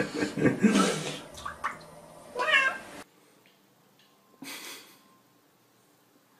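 Domestic cat meowing in a bathtub: one drawn-out meow about two and a half seconds in, cut off abruptly just after. Later there is a short burst of noise.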